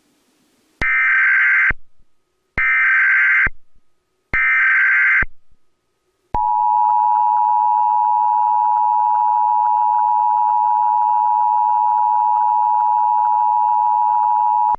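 Emergency Alert System tones: three bursts of SAME digital header data, each a rasping warble just under a second long, here encoding an Emergency Action Notification. After them the two-tone EAS attention signal (853 and 960 Hz) sounds steadily for about eight seconds and cuts off abruptly.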